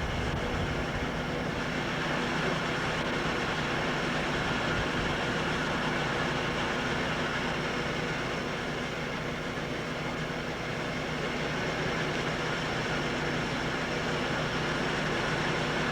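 Steady drone of engine-driven salvage pumps running, with several held low tones and an even mechanical noise over them.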